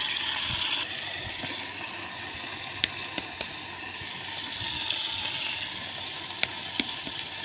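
Chili sambal sizzling in hot oil in an electric multi-function pot, a steady frying hiss with a few light clicks.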